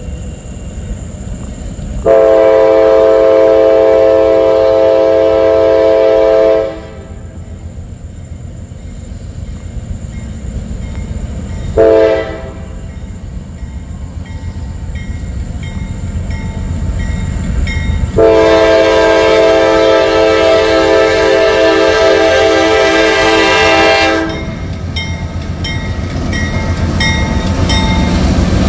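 Norfolk Southern diesel freight locomotive blowing its multi-tone air horn for a grade crossing: a long blast, a short one, then another long one. The rumble of the engine and train grows louder near the end as the locomotive reaches the crossing.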